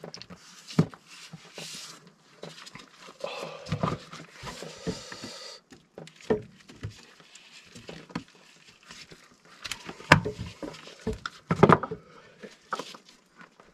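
Hand tools working on a copper water pipe: irregular clicks, scrapes and knocks of metal on metal, with two sharper clanks late on.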